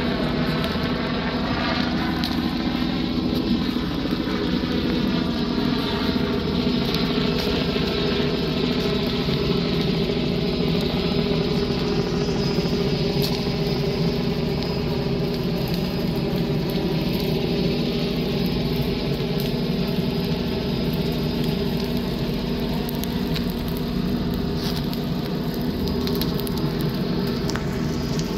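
Helicopter overhead, its engine and rotor giving a steady drone; the pitch sways a little in the first few seconds, then holds.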